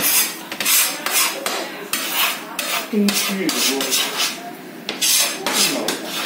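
A run of short scraping noises, roughly two a second, with a brief voice about halfway through.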